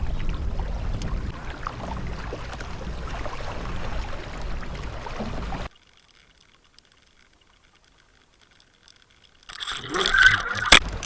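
Low wind rumble with water sounds around a kayak on the river, cutting off abruptly to near silence about halfway through. Near the end there is a sudden burst of rattling and a sharp click.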